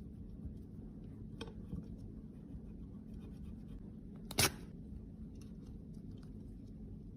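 Faint scratching and handling of small makeup containers and tools over a low steady hum, with one brief sharp knock a little after four seconds in.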